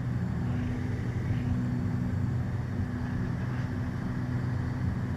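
Twin piston engines and propellers of a Beechcraft Baron running steadily at approach power with the gear down and one notch of flaps, a constant low drone with a steady hum.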